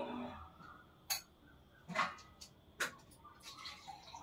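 Three faint, sharp clicks or taps about a second apart, then a few softer small sounds near the end.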